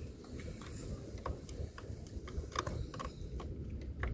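Scattered light clicks and taps of hands working at the car's wiring and fuse connections, irregularly spaced, over a low steady rumble.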